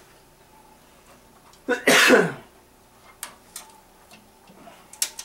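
A person sneezes once, about two seconds in, with a short lead-in and then a louder burst that falls in pitch. A few light clicks follow as hands work on parts in the PC case.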